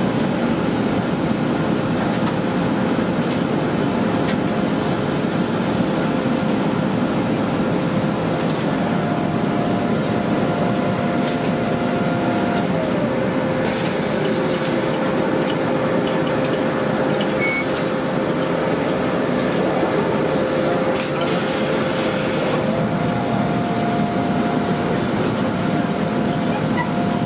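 Steady running noise of automatic shirt-ironing machines on a laundry floor: a constant hum with a steady whine, a second higher tone coming in twice, and a few short hissing bursts about halfway through.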